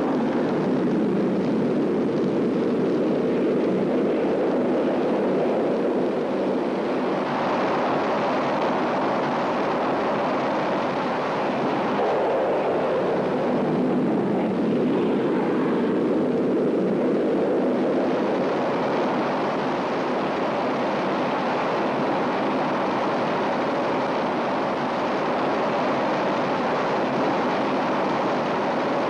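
Steady roar of Fiat G.91 jet fighters' engines in flight, with no single blasts standing out.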